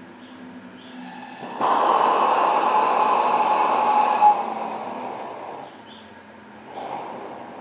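Pressurised butane gas hissing through a valve. It starts abruptly, holds steady for a few seconds, then fades, and comes back more faintly near the end.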